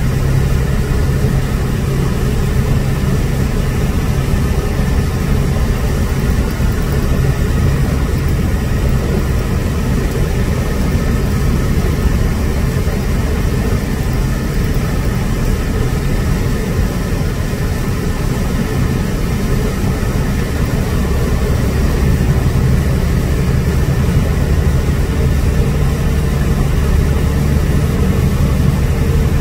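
Truck engine and road noise heard inside the cab while driving on the highway: a steady low drone.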